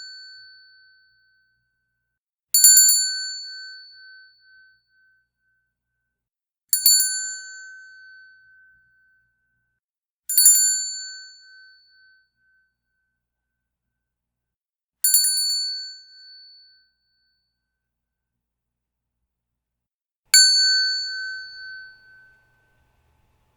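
A jingle bell shaken five times, each a brief bright jingle that rings out and fades over a second or two, with pauses of a few seconds between.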